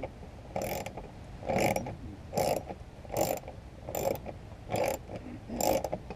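Hand socket ratchet clicking in seven short bursts, roughly one every 0.8 seconds, as a bolt holding the plastic engine undertray is backed out stroke by stroke.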